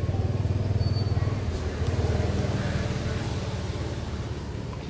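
A motor vehicle's engine running close by: a steady low hum with a fast, even pulse that slowly fades from about two seconds in.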